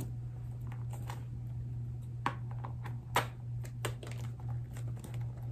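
Paper rustling and crinkling in short, scattered bursts as a small paper-wrapped gift is handled and opened by hand, over a steady low hum.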